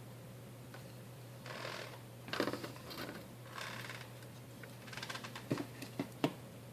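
Small laptop parts being handled during fan and heatsink removal: a few bursts of scraping and rustling, then three sharp clicks near the end.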